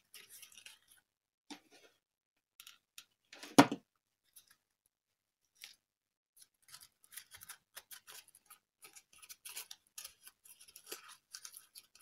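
Faint rustling and small ticks of hands handling and weaving thin foamiran (craft foam) strips, with one sharper click about three and a half seconds in.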